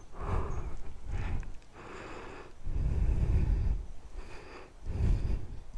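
A man breathing heavily close to the microphone, a puff about every second, several of them rumbling on the mic.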